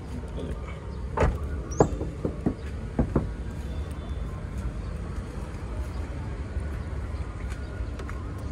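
Steady low rumble of vehicles, with a handful of short knocks and clicks about one to three seconds in.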